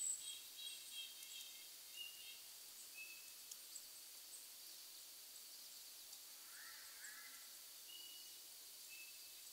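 Faint forest ambience: a steady soft hiss with a few faint, short, high bird chirps scattered through it.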